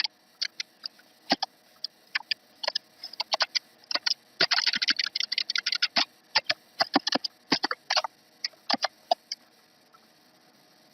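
Typing on a computer keyboard: irregular runs of key clicks, busiest from about 4 to 5 seconds in, stopping about a second before the end.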